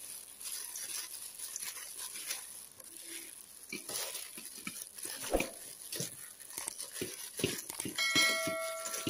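Gloved hand squeezing and rubbing damp flattened rice flakes (cốm dẹp) in a stainless steel bowl, loosening clumps that soaked up coconut water: irregular soft crackling and rustling. About a second before the end, a short electronic chime sounds.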